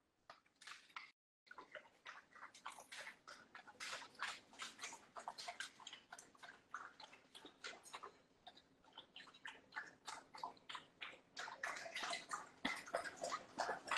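Dog lapping water from a bowl: a quick, uneven run of soft wet laps and splashes, a little louder near the end.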